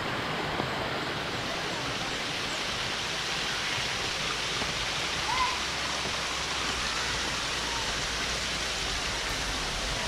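Steady rush of a waterfall and its cascades pouring over rock, with a brief faint chirp about halfway through.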